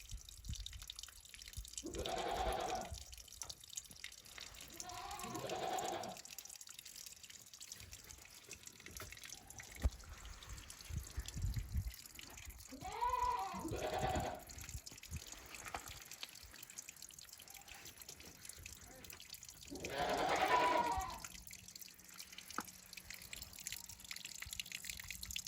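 Goat bleating four times, each call about a second long, with light ticking and clicking between the calls.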